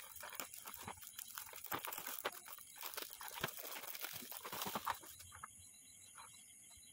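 Shiny gift wrap crinkling and tearing as a present is unwrapped by hand: a dense crackle that dies down about five seconds in.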